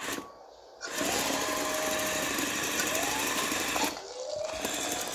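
LEGO BOOST electric motors whirring and their gears and tracks rattling as the tracked LEGO vehicle drives. The whirr stops briefly just after the start, then runs again with short whines rising in pitch as the motor speeds up, and quietens about four seconds in.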